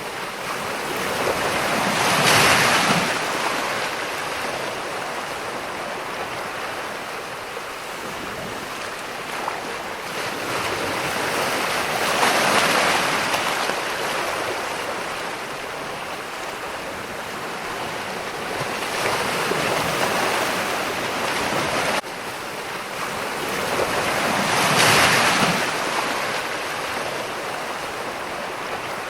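Ocean waves breaking and washing ashore: a steady hiss of surf that swells into four louder breakers, one every several seconds.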